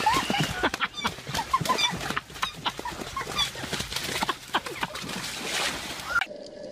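Black swan attacking at close range: wings beating and splashing in shallow water, with short, repeated high squawks. It cuts off abruptly near the end, leaving a steady low hum.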